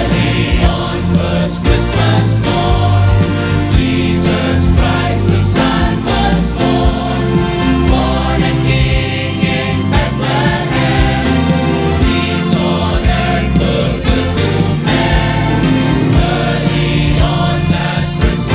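Choir singing a Christmas song over instrumental accompaniment with a strong bass and a steady drum beat.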